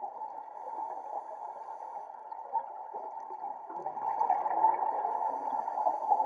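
Muffled underwater ambience heard through a camera housing, with a scuba diver's exhaled regulator bubbles gurgling louder in the second half.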